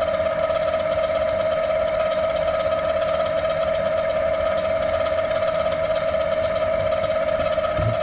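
Electric motor and the belt-driven wood splitter it powers, running steadily at light load, with a high steady whine and fast, even ticking.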